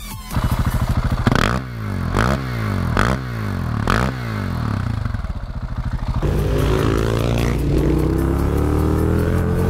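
KTM 690 SMC R's single-cylinder engine, breathing through an Akrapovič exhaust, revved in four sharp throttle blips while the bike stands, each rising and dropping back. From about six seconds in, a motorcycle engine runs steadily under way.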